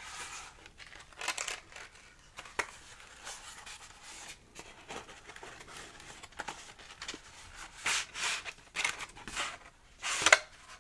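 Paper note cards and their thin cardboard box rustling and scraping as they are handled and slid out of the sleeve close to the microphone: irregular short rustles, with the loudest scrape near the end.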